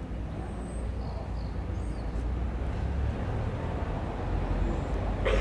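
Steady deep outdoor rumble with a hiss of background noise, and a few faint high chirps.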